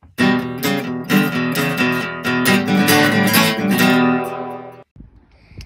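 Intro music of strummed guitar chords, played steadily and then cutting off abruptly just before five seconds in.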